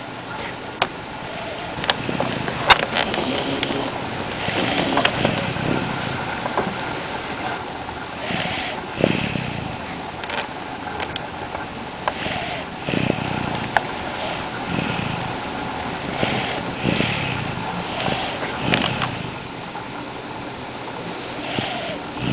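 Baby snoring in sleep: a rasping breath that comes back about every four seconds. A few sharp clicks in the first three seconds.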